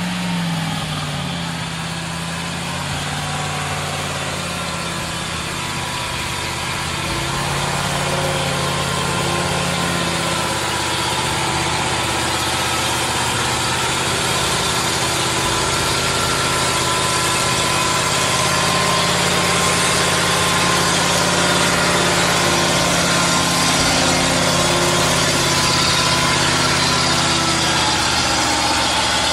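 Ural 6x6 truck's engine running steadily as the truck drives off-road laden with logs, growing gradually louder.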